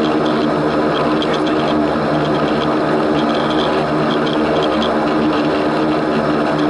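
Antonov An-24's twin Ivchenko AI-24 turboprop engines and propellers running with a steady, even drone that holds one pitch throughout.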